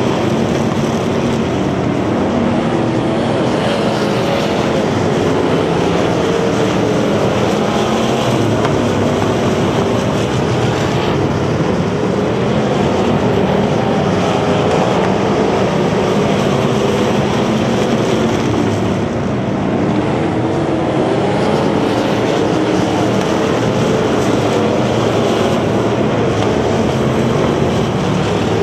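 Engines of several bomber-class dirt-track stock cars racing, running loud and steady, with their pitch wavering as the cars go around the track.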